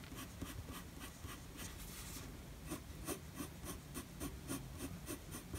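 Faint scratching of a Faber-Castell graphite pencil on drawing paper: short, quick strokes in a steady rhythm, sketching in fur and whisker lines.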